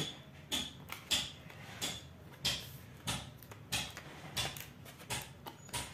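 A thermal paste syringe being packed back into its plastic blister pack: a string of light plastic clicks and crinkles, about two a second.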